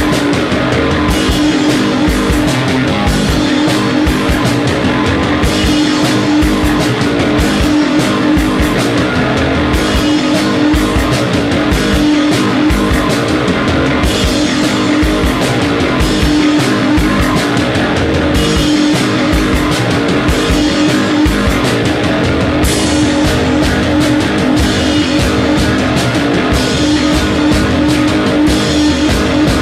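Loud rock music with guitar and a steady drum beat.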